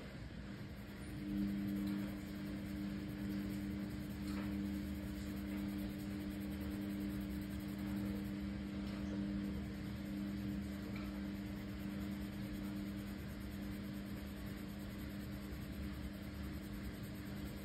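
A steady low hum with two held tones starts about a second in and continues, over faint scratching of a coloured pencil shading on paper.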